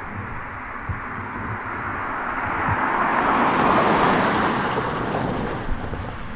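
CSX intermodal freight train passing at speed: a steady rush and rumble of steel wheels on rail that swells to its loudest about four seconds in, then eases off.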